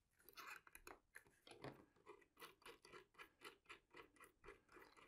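Faint small clicks and scrapes, about three or four a second, as a propeller nut is spun finger-tight by hand onto the threaded collet prop adapter on an electric RC plane's motor shaft.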